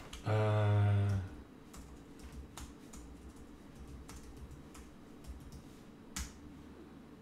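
A man's short hum lasting about a second near the start, followed by scattered keystrokes on a computer keyboard: a dozen or so separate clicks as a command is typed.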